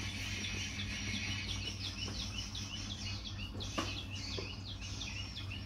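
A bird chirping rapidly over and over, short falling notes several times a second, over a low steady hum. One sharp tap comes about four seconds in.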